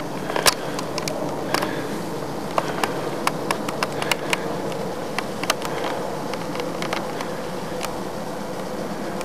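A steady droning hum with scattered sharp clicks and ticks over it.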